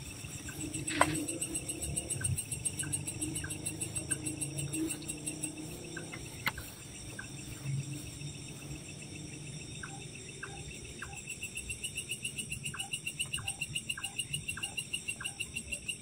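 Crickets and other night insects chirping in a steady, pulsing chorus, with a few faint clicks and a low hum underneath.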